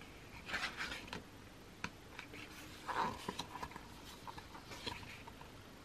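Pages of a photobook being turned and handled: short paper rustles and light taps, loudest about half a second to a second in and again about three seconds in.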